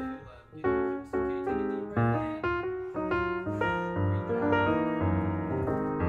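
Background piano music: a melody of struck notes over a low bass line.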